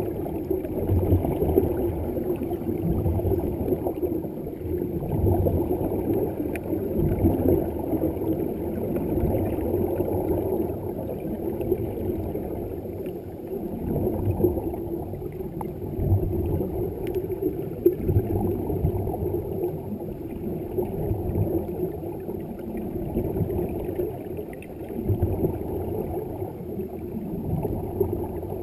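Muffled underwater sound heard through a waterproof camera housing: a steady low rumble with gurgling surges of divers' exhaled air bubbles every few seconds.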